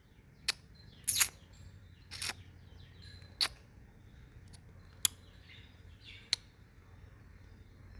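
Pruning shears cutting the bark of a guava branch: about half a dozen short, crisp snips and clicks spread over several seconds, with a louder double snip a little after one second in, as a ring of bark is cut away.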